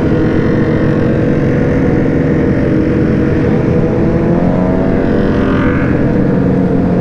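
Sport motorcycle engine running steadily at highway cruising speed, heard from on the bike, with the low rush of wind and road underneath. Its pitch rises slightly about four seconds in.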